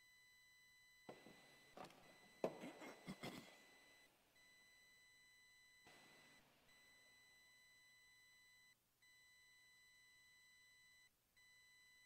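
Near silence with a faint, steady high electronic tone that cuts out briefly every two seconds or so. A cluster of clicks and knocks comes from about one to three and a half seconds in, and a soft rustle about six seconds in.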